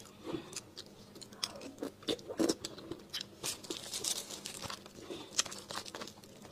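Metal spoon scraping and clicking inside a split roasted marrow bone as the marrow is dug out, close to the mic, in short irregular strokes, mixed with soft eating sounds.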